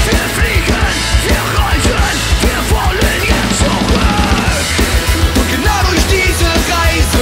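Live punk/metal-style rock band playing loud: electric guitars and a drum kit with a fast, pounding kick drum, under shouted vocals.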